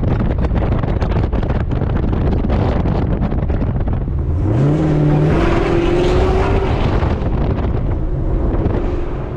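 Chevrolet Camaro engine cruising with steady road and wind noise. About halfway through, it opens up and accelerates hard, its exhaust note climbing and then holding high for a couple of seconds before easing off.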